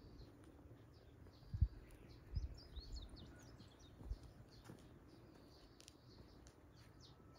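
Small birds chirping with short, quick high calls, busiest about three seconds in, over a faint outdoor background. Three low thumps stand out, the loudest about a second and a half in.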